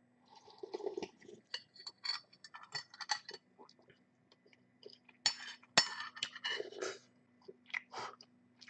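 Drinking soup broth from a ceramic bowl, then chewing with many small wet mouth clicks. About six seconds in, a metal spoon clinks sharply against the bowl.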